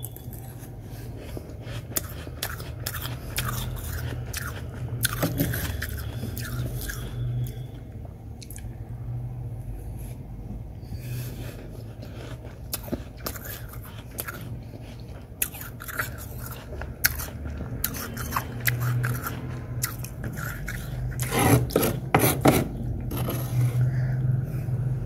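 Packed freezer frost being scraped with a metal spoon and crunched in the mouth: a run of irregular crisp crackles and crunches, loudest in a cluster near the end, over a steady low hum.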